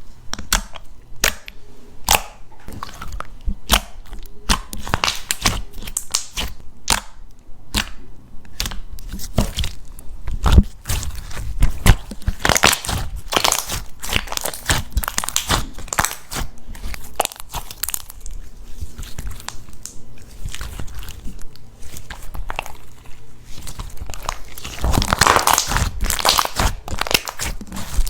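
Jelly slime squeezed and poked by hand, giving many quick clicks and pops that bunch into dense runs about twelve seconds in and near the end.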